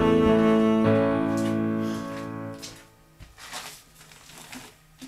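Background music of sustained chords, fading out about two and a half seconds in, followed by faint clicks and handling noises.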